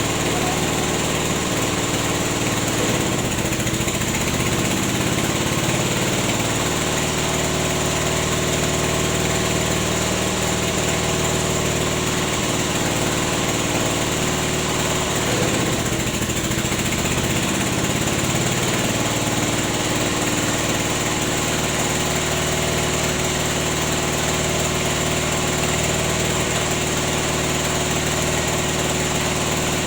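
Small engine running steadily, driving a rubber-latex sheet press. Its note wavers briefly twice, about 3 and 16 seconds in.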